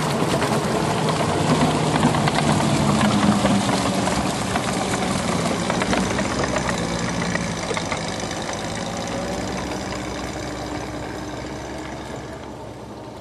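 1945 Studebaker M29 Weasel tracked vehicle running, its six-cylinder Studebaker Champion engine giving a steady drone over a constant clatter, gradually fading.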